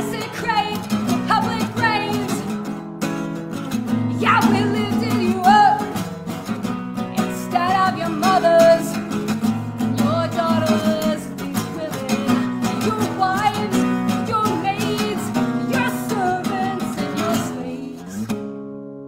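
A woman singing over a strummed acoustic guitar. The song ends about a second before the close, and the last guitar chord is left ringing and fading.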